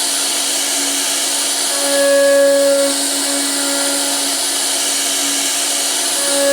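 CNC router spindle running with a steady whine while it carves a door design in wood. The sound grows louder for about a second twice, around two seconds in and again near the end.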